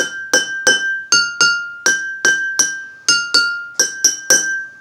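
Two identical drinking glasses holding different amounts of water, tapped with a pencil in a rhythm, about three taps a second. Each tap rings on as a clear tone at one of two close pitches, one glass slightly higher than the other.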